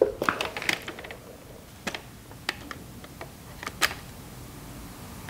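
Light, irregular clicks and taps: a quick cluster in the first second, then single clicks spread over the next three seconds.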